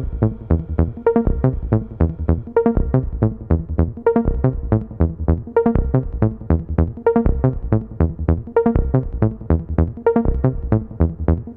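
Electronic background music: short plucked notes in a quick, even rhythm over a steady beat.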